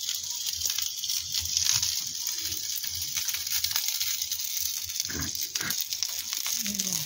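Steady hiss of dumplings sizzling in a grill pan over a camp burner, with a few short low vocal sounds about five seconds in and again near the end.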